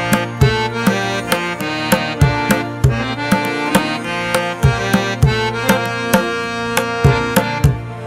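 Background music: a steady beat of hand-drum strikes over sustained droning tones and a melody.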